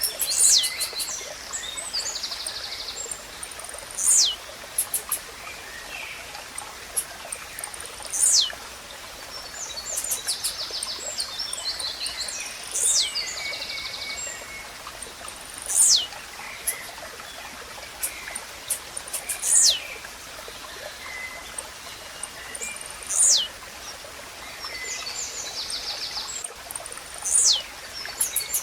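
Blue-black grassquit (tizil) repeating its short, sharp down-slurred song note seven times, about every four seconds. Other small birds chirp and trill rapidly in between.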